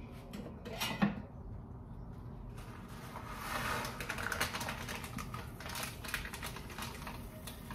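Popcorn kernels going into the hot, oiled metal kettle of a small popcorn machine: a patter of small clicks and rattles, with a denser hiss about three to five seconds in.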